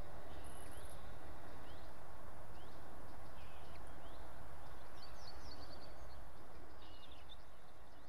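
Outdoor summer ambience: a steady background rush with scattered short, rising bird chirps, including a quick run of chirps about five seconds in. Everything fades out near the end.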